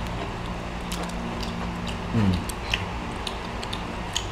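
Scattered crisp clicks and crackles of grilled prawn shells being peeled by hand and crunched while eating, over a steady low hum. A short low sound falls in pitch about two seconds in.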